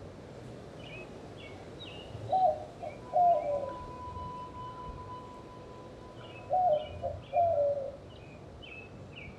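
Morning birdsong: small birds chirping in short high phrases, with a louder, lower two-note call heard four times in two pairs. A steady tone holds through the middle.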